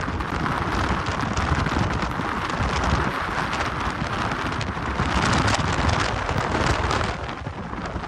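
Strong mountain wind blowing hard against the microphone: a dense, steady rush with crackling buffets.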